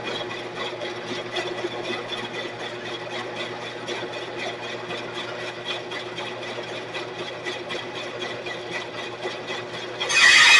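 Sears Craftsman 12-inch two-speed bandsaw running free: a steady motor hum with a fast, regular ticking from the turning wheels and blade. Near the end a much louder, harsher sound starts suddenly.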